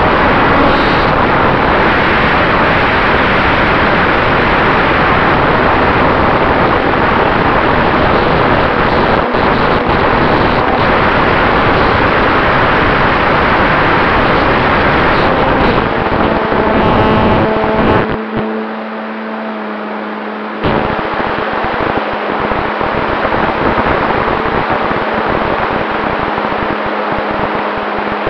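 Onboard sound of a radio-controlled model Cessna 188 in flight: loud rushing air over the camera microphone mixed with the model's motor running. About eighteen seconds in the rush drops suddenly for a couple of seconds, leaving a steady hum, then returns somewhat quieter with the hum still under it.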